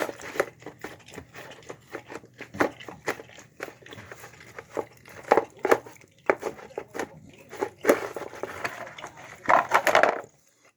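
A dog eating a wet meal of chicken, egg, rice and cabbage close to the microphone: irregular wet chewing, smacking and crunching bites. It stops abruptly near the end.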